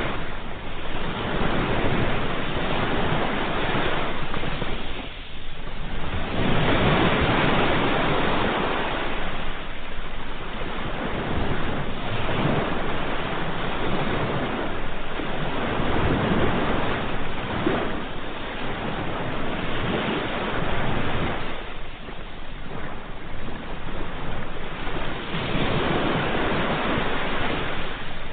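Ocean waves breaking and washing on a shore, the surf noise swelling and ebbing every few seconds.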